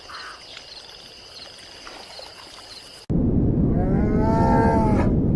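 Insects chirping steadily and faintly, then after about three seconds an abrupt cut to a loud yak call: a drawn-out, moo-like note over a heavy low noise.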